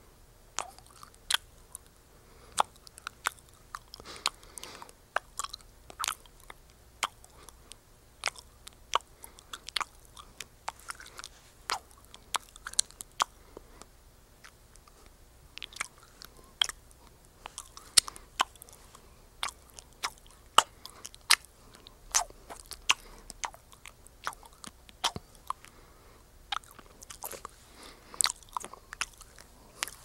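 Chewing gum being chewed close to the microphone: an irregular run of sharp clicks and smacks, several a second, with a brief lull about halfway.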